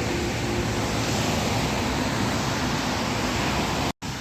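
Steady rushing background noise, broken by a split-second dropout to silence near the end.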